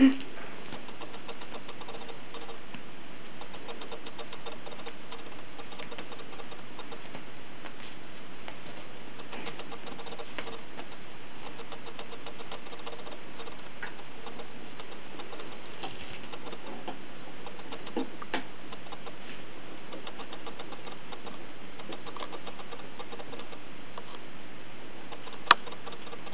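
Kittens scampering and scuffling on carpet and a fabric play tunnel: faint patter and scratching over a steady hiss, with one sharp click near the end.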